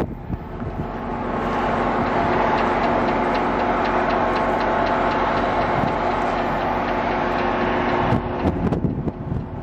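MBTA commuter train's passenger coaches rolling past close by as the train pulls out: a steady rush of wheels on rail with a low hum under it and a fast run of clicks. The noise builds over the first second or two and drops off sharply about eight seconds in.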